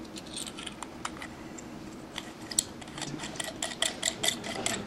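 A brass end cap being screwed by hand onto a renewable cartridge fuse, giving light, irregular metallic clicks that come faster in the second half.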